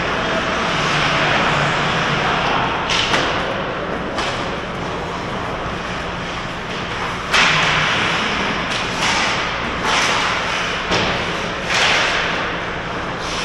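Ice hockey play close to the goal: skate blades scraping and cutting the ice, with sticks and puck knocking, over steady rink noise. A string of sharp scrapes and knocks comes about a second apart, the loudest about seven seconds in.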